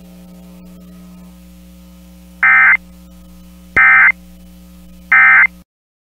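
Emergency Alert System End-of-Message code: three short, loud bursts of SAME digital data tones, about a second and a half apart, over a steady low hum. The audio then cuts off suddenly.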